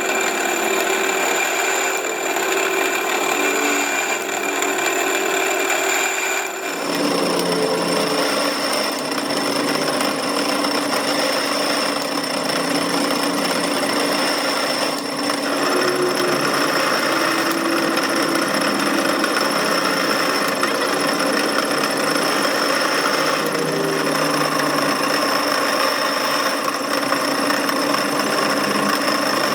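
Steady whirring and grinding of a power tool working metal, with a high whine. The whine's pitch and the tool's sound change abruptly about seven seconds in.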